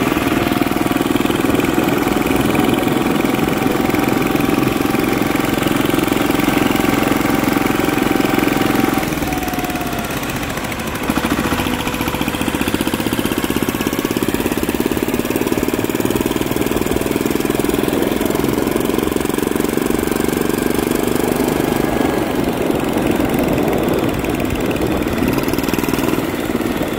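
Turbocharged 10 hp Yanmar-clone single-cylinder diesel on a racing lawn mower, running hard under load at speed. The engine note eases off about nine seconds in and picks up again about two seconds later.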